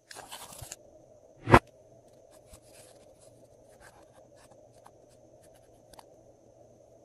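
A plastic eyeshadow palette rustles as it is moved and knocks down once, loudly, about one and a half seconds in. Then a thin metal spatula scrapes the pressed eyeshadow powder in its pan with faint, scattered little scratches.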